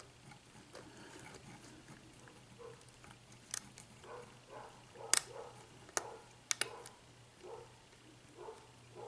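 A small lock pick single-pin picking a Fadex euro cylinder: faint scraping and squeaking against the pins, with several sharp metallic clicks, mostly between about three and seven seconds in.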